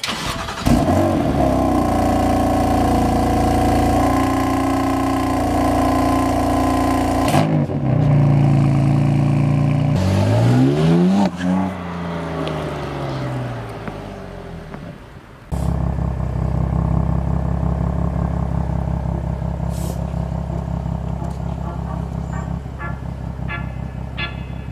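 BMW M3 (F80) twin-turbo straight-six engine held at high revs, then revved up and down and falling away as the car moves off. From about fifteen seconds in, an engine idles with a steady low rumble.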